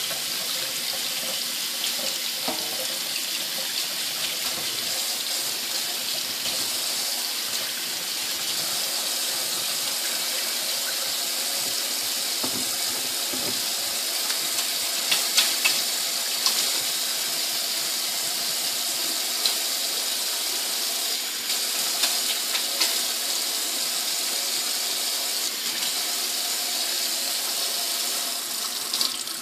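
Water running steadily from a tap into a sink as a cut finger is washed under it, with a few brief splashes.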